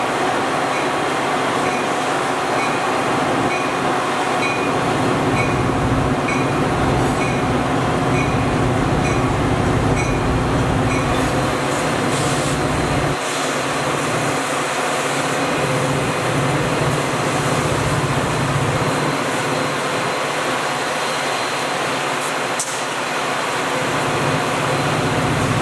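Metra commuter train of bilevel gallery cars rolling slowly past with a steady rumble and light clicks about once a second. After an abrupt change about halfway, EMD F40PH diesel locomotives run with a steady engine hum.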